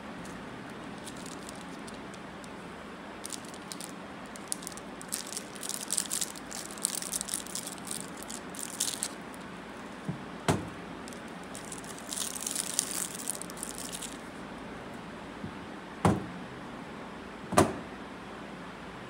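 Plastic wrappers crinkling in two long stretches as bars of dishwashing soap are unwrapped by hand, then three short knocks as soap bars are set down on a cloth-covered table, the last two the loudest.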